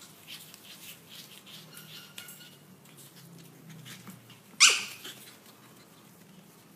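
Pomeranian puppies playing, with faint short squeaky yips and then one loud, sharp yap a little past the middle that drops in pitch.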